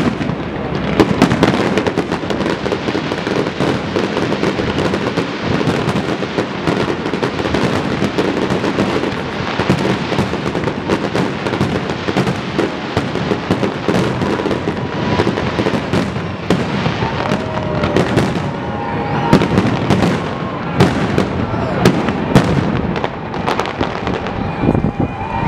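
Aerial fireworks shells bursting in quick, overlapping succession: a continuous barrage of bangs and crackle, with sharp single bangs standing out more often in the last several seconds.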